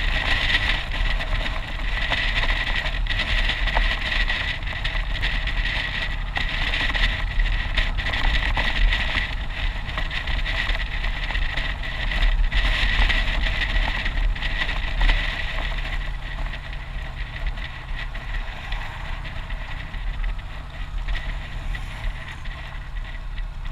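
Motorcycle riding along a road: steady engine and wind noise on the bike-mounted microphone, easing off somewhat over the last several seconds.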